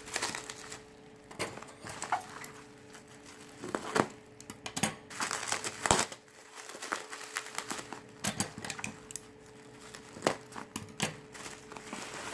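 Plastic bubble wrap being pulled off and handled, crinkling and crackling in irregular bursts of sharp clicks.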